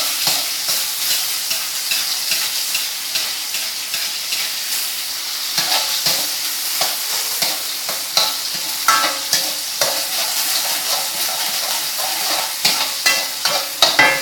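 Oil sizzling steadily in a wok as spices and spring onion are stir-fried over a gas flame, with several short scrapes and knocks of the spatula against the wok, more of them in the second half.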